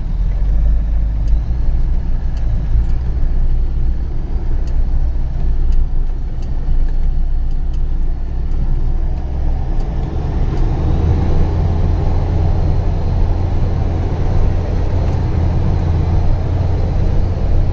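Truck engine running under load, heard from inside the cab while driving over a rough dirt road. Faint ticks come about once a second in the first several seconds, and about ten seconds in the engine note rises and grows stronger.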